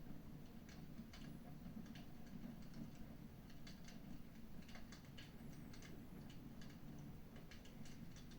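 Wood fire in a fireplace crackling, with irregular sharp snaps and pops over a low steady rumble.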